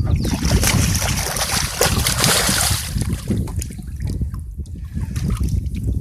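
Water splashing and sloshing against a small fishing boat for about the first three seconds, with scattered knocks, over a steady wind rumble on the microphone.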